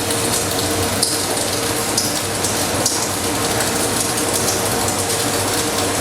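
Stick (MMA) welding arc burning a 2.5 mm electrode at about 100 amps: a steady crackling sizzle with a few sharper pops and a constant hum underneath.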